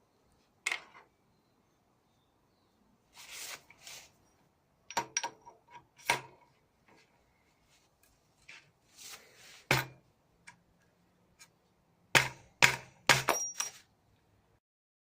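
Hand tools striking metal: irregular sharp taps and knocks, with a quick run of four near the end and soft scraping and rustling between them.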